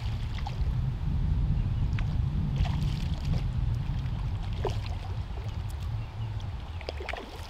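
Wind buffeting the microphone as a steady low rumble, with faint short high chirps scattered through it.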